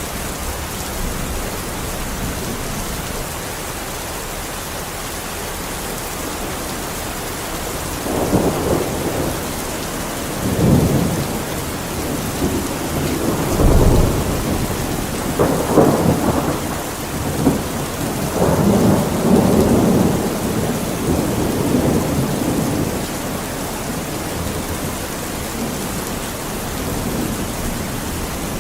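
Steady rain with rolling thunder: a run of low rumbles swells in about a third of the way in and dies back well before the end.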